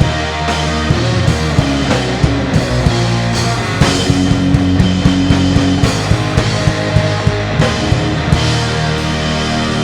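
Instrumental rock music: sustained electric guitar and bass with a steady drum beat.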